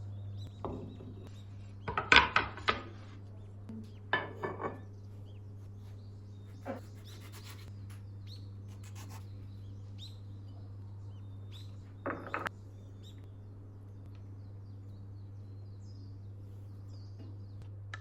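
Household objects being handled: three or four short clusters of knocks and clatters over a steady low hum, with faint bird chirps.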